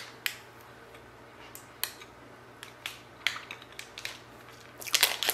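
Plastic snack-bar wrapper crinkling in the hands while a soft cereal bar is chewed: scattered small crackles and clicks, busiest near the end.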